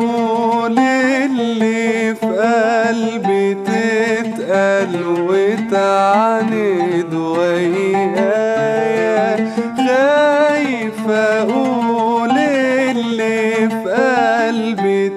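A male voice singing a long, sustained Arabic vocal line whose pitch bends and wavers, accompanied by an oud.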